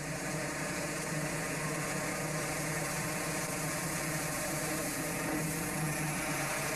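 Water-jet-propelled workboat engines running steadily under way: an even engine drone with a steady hiss over it.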